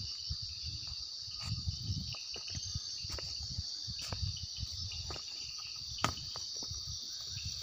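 A cricket chorus trilling in a steady, high, even band. Under it are irregular low thumps and a few sharp clicks, the loudest about six seconds in.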